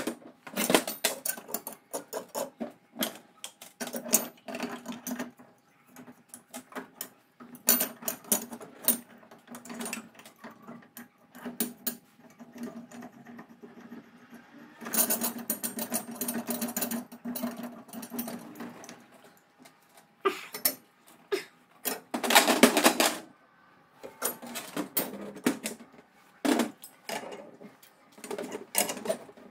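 Hand tools working on the steel parts of a buggy chain-drive spool: snap-ring pliers and a bearing puller clicking, clinking and rattling against the metal hub and brake disc in an irregular run of sharp taps. Denser, louder clattering comes a little past halfway and again about three quarters of the way through.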